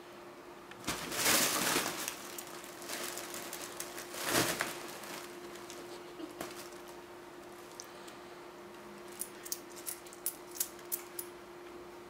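Kittens scrabbling in a fabric cat play tunnel: two loud rustling swishes of the tunnel, about a second and about four seconds in, with smaller scuffles between. Near the end comes a quick run of light clicks. A faint steady hum runs underneath.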